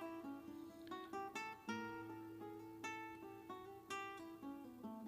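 Background music: plucked acoustic guitar notes at a gentle pace, fairly quiet.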